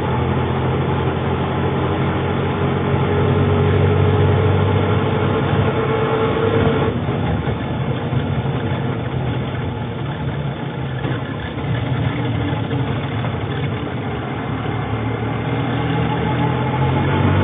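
Auto rickshaw engine running, its pitch rising for several seconds as it picks up speed, then dropping abruptly about seven seconds in and settling to a steadier run before building again near the end.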